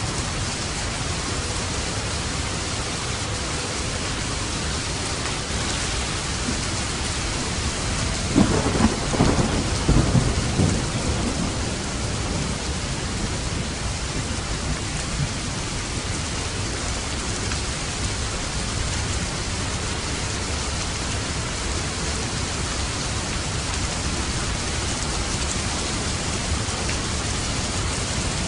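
Steady rain falling on a roof, with one thunderclap about eight seconds in that crackles and rumbles for a few seconds before fading back into the rain.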